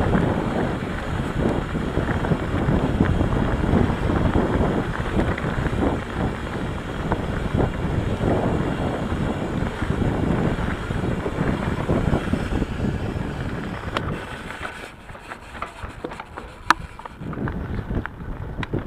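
Wind rushing over the handlebar camera's microphone, with tyre rumble and clattering from an Ibis Mojo HD3 mountain bike riding a dirt singletrack. The noise drops about fourteen seconds in, leaving a few sharp clicks.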